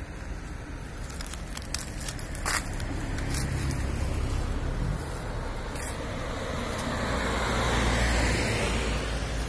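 Road traffic passing on a forest road: a vehicle's tyre and engine noise swells to a peak about eight seconds in and then fades, over a steady low rumble.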